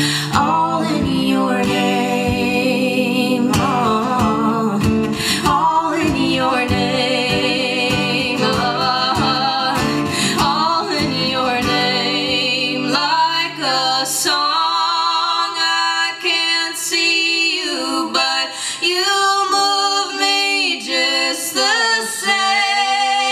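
A woman singing a wordless melody over strummed acoustic guitar; about halfway through the guitar drops away and the voice goes on nearly alone.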